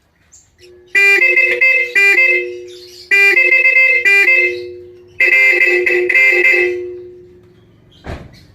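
Bosch high and low vehicle horns on a Toyota Hiace van sounding together in three loud blasts, each a quick run of toots, the two pitches blending into one two-tone horn.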